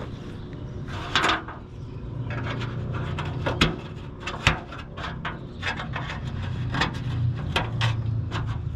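Small parts and hardware being handled and rummaged through: a string of light clicks, knocks and rubbing, with a brief scrape about a second in, over a steady low hum.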